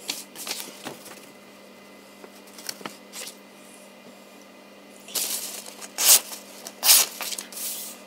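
Sheets of paper rustling and sliding across a desk as they are gathered up and moved, in several bursts, loudest in the last few seconds.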